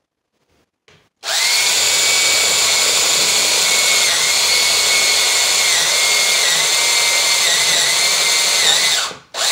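DeWalt cordless drill boring a hole into a 2x4, starting about a second in and running steadily at full speed for about eight seconds. The motor's pitch dips briefly a few times as the bit bites into the wood. It then stops, with one short burst of the drill just before the end.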